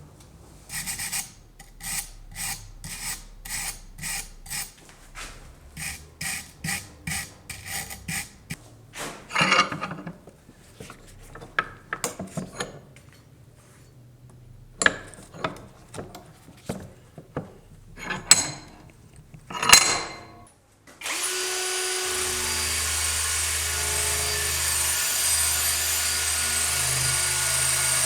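Rust being worked off the knife by hand: repeated short scraping strokes, about two to three a second, then scattered scrapes and knocks. About 21 seconds in, an electric power tool starts and runs steadily with a whine.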